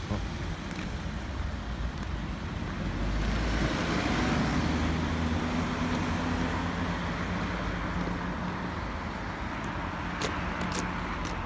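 Road traffic on a busy road: a steady rush of tyres and engines. It swells about four seconds in as a vehicle passes, with its low engine hum, and then slowly eases.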